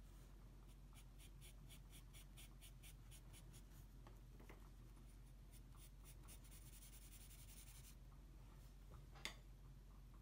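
Faint pencil strokes on drawing paper: quick scratchy hatching strokes at about four a second, then a steadier rubbing stroke that stops about eight seconds in. A single sharp tap comes about nine seconds in.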